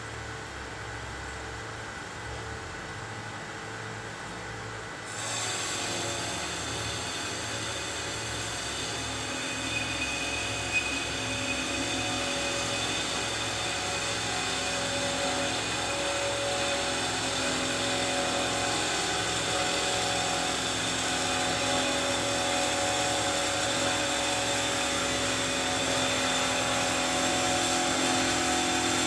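Bomar Ergonomic 320.250 DG metal-cutting band saw running. About five seconds in, it turns louder with a higher whine that grows slowly louder.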